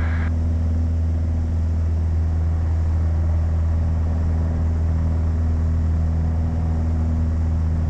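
Piper PA-28 light aircraft's piston engine and propeller running steadily at full power during the climb-out after take-off, an even drone in the cabin.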